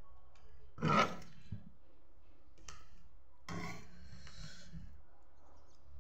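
Mouth noises of a person eating with her hand: short smacking and chewing sounds, a louder one about a second in and another spell about three and a half seconds in.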